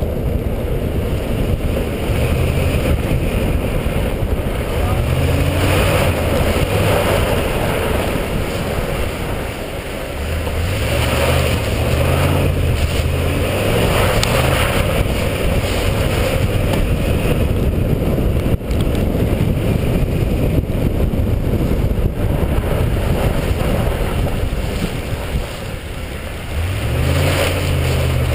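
The 2010 Ford F-150's V8 engine revs up and down in several surges as the truck slides on ice, heard from a camera mounted low on the truck's side. A steady rush of wind and driving noise lies under it throughout.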